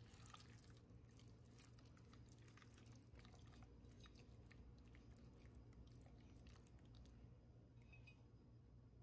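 Faint, irregular wet squelching and light scraping of a silicone spatula mixing raw beef chunks in a yogurt, oil and spice marinade inside a pot, thinning out near the end.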